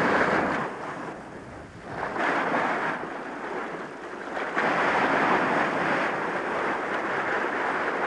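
Rough surf breaking and churning around rocks: a rushing wash that swells and eases. It dips about a second in, surges again after about two seconds, and after a second lull about halfway through it rises and stays strong.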